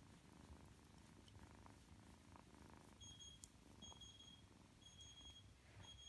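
A kitten purring steadily, close by and low. From about halfway in, a faint high electronic beep repeats roughly once a second.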